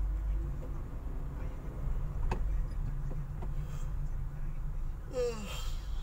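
Low, steady rumble of a Honda Mobilio's engine and tyres heard from inside the cabin while driving slowly. A single click sounds a little past two seconds, and a short falling voice-like sound comes near the end.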